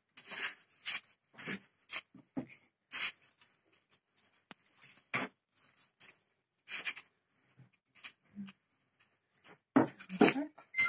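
Wooden rolling pin rolling out shortcrust pastry dough on parchment paper: irregular short swishing and rustling strokes as the pin and hands push over the paper, a few louder strokes near the end.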